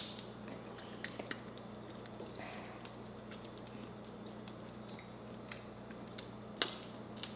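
Quiet mukbang eating sounds: seafood shells being peeled by hand and chewed, heard as soft scattered clicks and squishes, with a sharper click at the start and another about six and a half seconds in. A steady low hum runs underneath.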